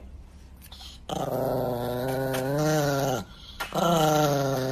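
Chihuahua growling in two long, drawn-out growls: the first starts about a second in and sinks in pitch as it fades, and the second begins near the end.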